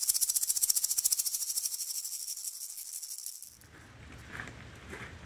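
Rapid, evenly paced shaker rattle, about ten shakes a second, fading and then cutting off about three and a half seconds in; after it only a faint low background hum.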